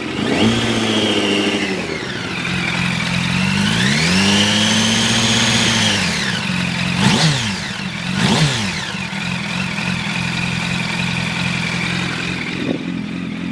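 2006 Yamaha R1's inline-four idling through an Arata full titanium exhaust, revved up and held twice, the second time higher and longer, then blipped sharply twice before settling back to idle.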